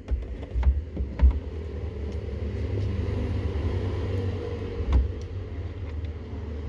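A few sharp knocks of parts being handled near the start, over a steady low mechanical rumble and hum that swells for a few seconds, as from a car's AC blower motor running.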